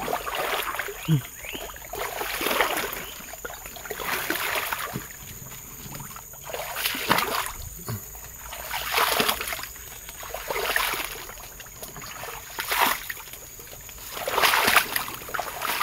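Footsteps wading through shallow swamp water, a splash and slosh with each stride, about one step every second or so.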